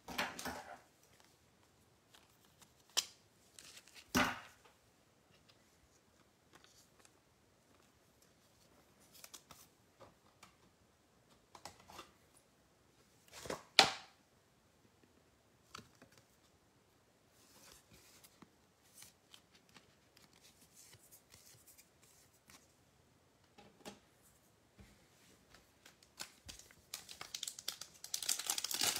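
Trading cards and foil card packs being handled: scattered light rustles and clicks, with a sharper click a little after 4 seconds and another near 14 seconds. Near the end comes a run of crinkling as a foil card pack is gripped and torn open.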